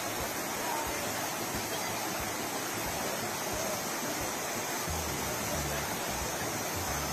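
Steady rush of shallow river rapids churning over rocks.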